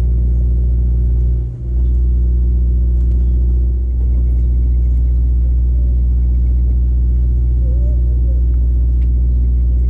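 Sportfishing boat's engine running steadily: a loud, even low drone with a brief dip about a second and a half in.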